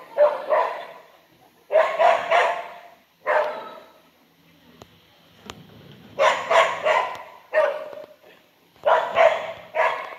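Dog barking repeatedly in quick runs of two or three barks, with a pause of about two seconds in the middle.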